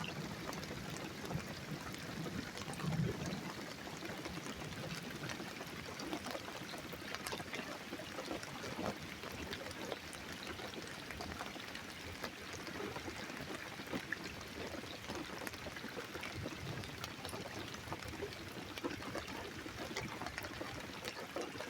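Steady rain falling in a thunderstorm: an even hiss of water with many small drop ticks.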